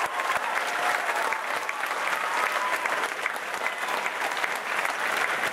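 Large audience applauding steadily, many hands clapping at once, with a few voices faintly mixed in.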